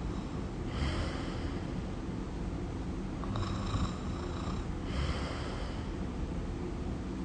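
Snoring: slow, regular breaths drawn in and let out, a full cycle about every four seconds, over a steady low rumble.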